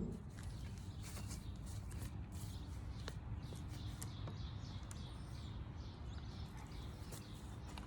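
Quiet outdoor ambience: a steady low rumble with scattered short bird chirps.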